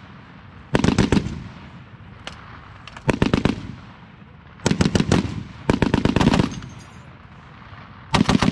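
M2 Browning .50-calibre heavy machine guns firing five short bursts of a few rounds each, spaced about one to two and a half seconds apart.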